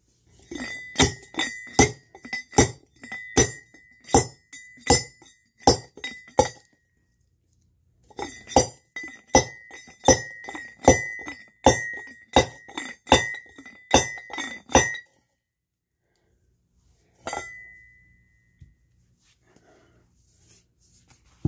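Hand rock crusher: a heavy metal pestle pounding ore inside a metal crusher cup, making sharp ringing clanks about two a second. The clanks come in two runs with a short pause between, then one last ringing strike.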